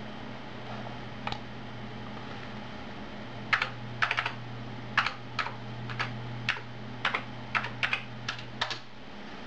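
Typing on an Amiga 600's keyboard: a run of about fourteen key clacks over some five seconds, starting about three and a half seconds in, as a web address is entered.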